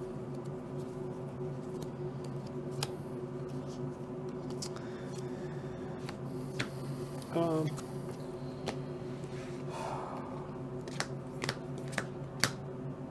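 Sharp clicks and snaps of playing cards and game pieces being handled on a tabletop, several in quick succession near the end, over a steady low hum. A brief murmured voice about seven seconds in.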